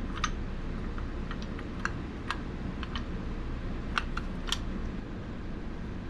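Light, irregular clicks and taps, about a dozen scattered through, from small lock parts and tools being handled, over a steady low background hum.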